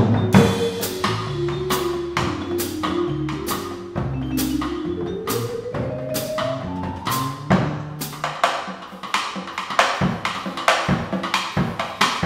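Live small jazz group playing: low upright bass notes carry the line while the drummer keeps time with cymbal strokes about twice a second. A run of notes climbs in pitch about five to seven seconds in.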